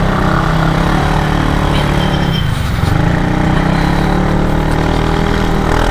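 Kymco Xciting S 400i maxi-scooter's single-cylinder engine running at a fairly steady pitch through an aftermarket Orion carbon-tip exhaust fitted with a dB killer, under way in traffic.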